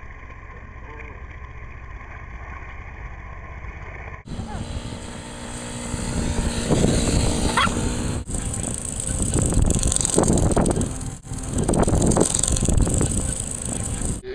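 Quad ATV engine running, heavily mixed with wind buffeting the microphone; it starts abruptly about four seconds in, after a few seconds of quieter outdoor hum.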